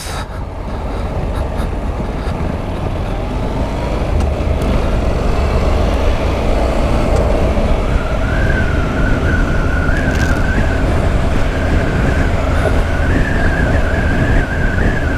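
Wind rushing over a motorcycle-mounted microphone, with the Honda NC 750X's parallel-twin engine, as the bike pulls away and builds to highway speed, the noise swelling over the first few seconds. From about halfway on a wavering high whistle sits on top.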